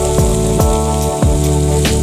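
Background instrumental music with a regular beat and repeated falling bass notes, over an even sizzling hiss of oil frying in a pan.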